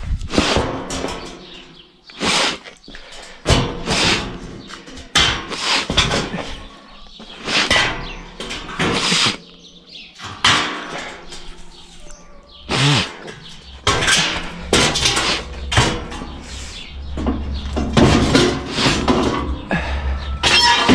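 A rusty steel plate and frame clanking and scraping as they are handled and fitted together, in a long series of irregular metal knocks, some ringing briefly.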